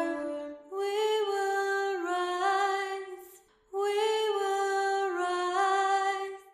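A female voice singing two long, slow phrases, each stepping down in pitch partway through, with a brief pause between them.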